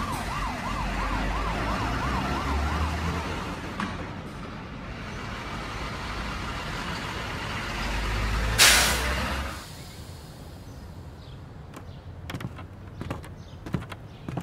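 A siren wailing rapidly up and down, about three times a second, over a low vehicle engine rumble; the siren stops about three seconds in. The rumble goes on, then a loud sharp hiss lasting about a second, after which the rumble stops. Near the end, a few light clicks as the toy truck's plastic cab door is handled.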